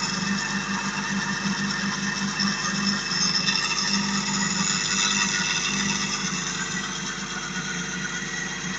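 Steady mechanical whirring from a small electric motor: a low hum that pulses about once a second under a constant high-pitched whine.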